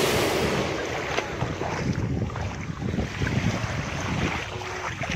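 Wind buffeting a phone microphone: an uneven low rumble with steady noise above it.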